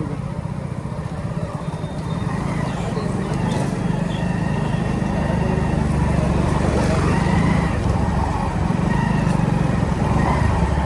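Hero Splendor motorcycle engine running steadily while riding, its note a little louder after about two seconds.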